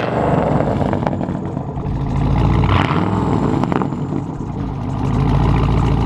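Car engine running at low revs, getting a little louder about halfway through and again near the end.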